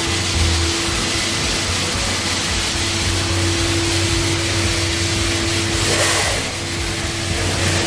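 A motor running steadily with a rushing hiss and a constant hum.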